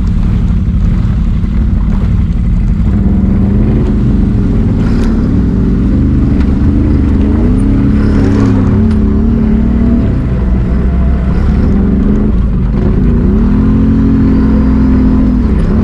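Can-Am Renegade XMR 1000R's V-twin engine through an SLG Sniper slip-on exhaust, running under throttle on a trail. The pitch rises and falls as it is revved up and eased off, twice going up and holding before dropping back.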